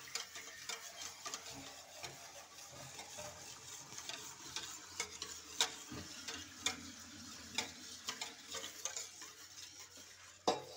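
Spoon stirring in a container, with scattered light clinks and scrapes over a faint background hiss.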